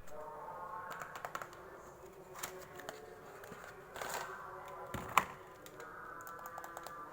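Hands handling and opening a shopping parcel: scattered light taps, clicks and packaging rustles, with a sharp click about five seconds in.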